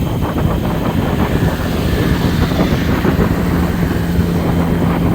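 Wind rumbling on the microphone over vehicle noise, with a steady low engine-like hum coming in about one and a half seconds in.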